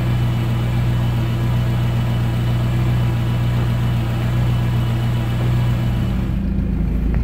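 VW Golf 3 petrol engine idling steadily with a loud exhaust, which the owner puts down to an exhaust system that is all but missing. About six seconds in, the sound changes to a lower, deeper rumble at the tailpipe.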